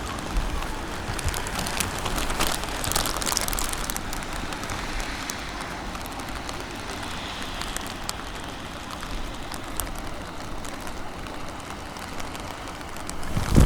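Fireworks crackling: a dense patter of many small sparkling pops over a low rumble, thickest in the first few seconds, then a loud firework burst booms right at the end.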